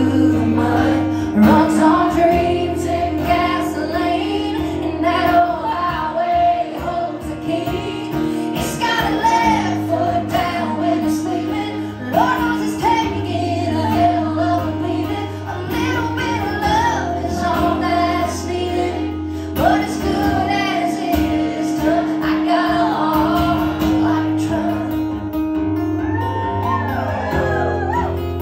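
A woman singing a country song live into a handheld microphone, over acoustic guitar accompaniment.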